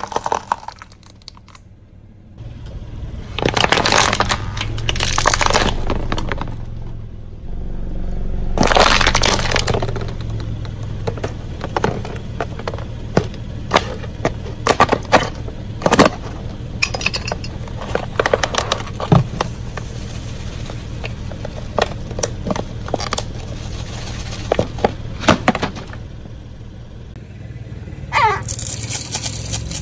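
A car tyre rolling slowly over brittle objects and crushing them: many sharp cracks, snaps and crackles, with the car's engine running low underneath.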